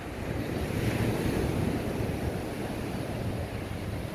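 Small sea waves breaking and washing up the sand, swelling about a second in, with wind buffeting the microphone.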